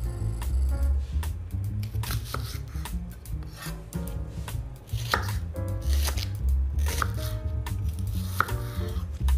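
Santoku knife slicing an onion on a wooden cutting board: a series of crisp, irregular knife strikes against the board.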